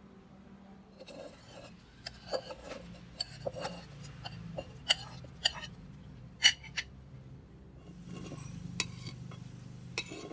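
Irregular sharp clinks and taps of a plate and utensils against a clay mortar as raw shrimp, tomatoes and chopped culantro are tipped and scraped in, over a low steady hum.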